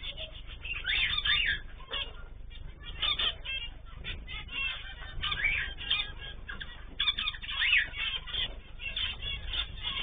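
Zebra finches in an aviary calling, many short nasal chirps overlapping in quick flurries, louder about a second in and again later. Heard through a security camera's microphone, so it sounds thin, with the top end cut off and a low hum underneath.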